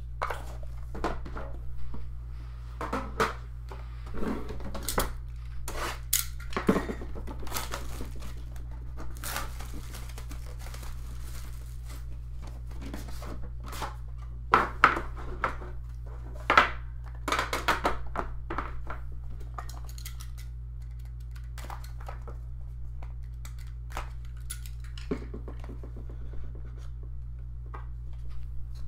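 Cardboard trading-card boxes being handled and opened: irregular rustling, scraping and tapping of cardboard, with a few sharper knocks about halfway through, over a steady low hum.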